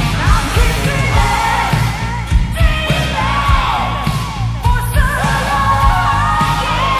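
1980s hard rock demo recording: a female lead singer holding high notes with vibrato over electric guitar, bass guitar and drums.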